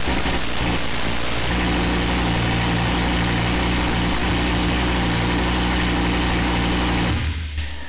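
Audi R8 first-generation 5.2 V10 running steadily at idle on its first run after an engine replacement. It stops abruptly about seven seconds in.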